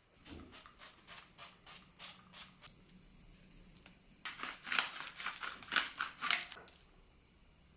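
Kitchen food-preparation sounds: a series of light clicks about two or three a second, then about four seconds in a louder, quicker run of short scraping or cutting strokes lasting about two seconds.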